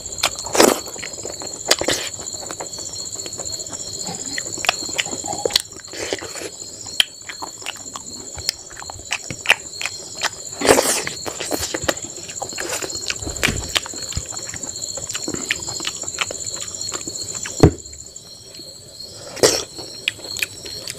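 Close-up eating sounds: fingers squelching and mixing rice on a steel plate, with wet chewing and lip smacks coming as many short clicks. Behind them runs a steady high insect trill, the higher part of which drops out near the end.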